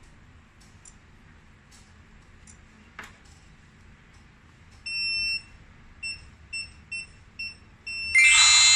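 eMastiff W2B alarm control panel beeping: one long high beep about five seconds in, then five short beeps at about two a second, then a loud ringing chime near the end.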